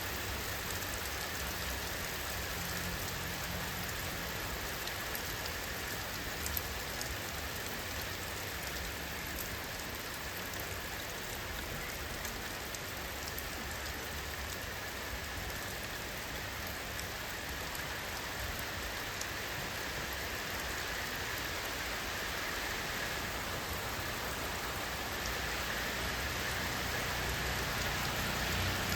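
Steady rain falling: an even hiss with a low rumble underneath, growing slightly louder near the end.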